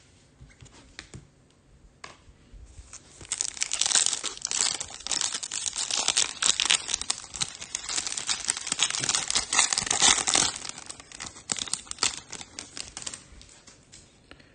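Foil wrapper of a 2021 Topps Chrome Platinum trading card pack being torn open and crinkled by hand, a dense crackling that starts a few seconds in and tails off near the end.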